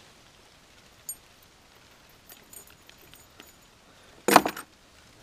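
Metal spinnerbait and hook jingling and clicking as a bass is unhooked by hand, with a few light clicks and then a short loud rattle about four seconds in.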